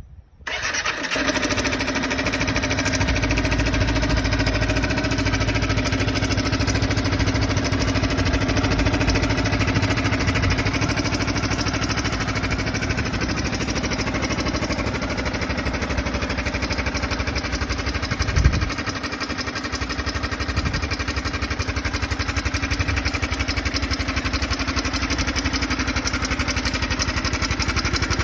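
Used car's engine starting and then idling steadily, carrying the abnormal engine noise that is the owner's complaint. A short, louder jolt comes about two-thirds of the way through.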